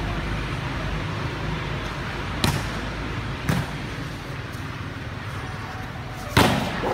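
Volleyball being hit three times in a rally: two sharp slaps about a second apart, then a louder smack near the end as a spike meets the block at the net.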